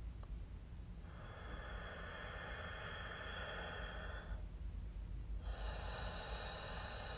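Slow Ujjayi breathing through the nose: one long breath of about three seconds, a pause of about a second, then the next long breath.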